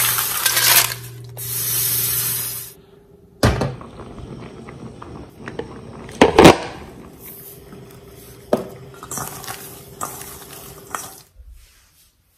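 Kitchen cookware sounds: a loud hiss for the first few seconds that cuts off abruptly, then metal utensils clinking and knocking against pots and dishes, with one loud clank about six seconds in.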